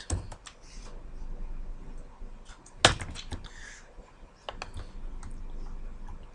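Scattered computer keystrokes and mouse clicks, a few at a time, with one loud sharp click about three seconds in.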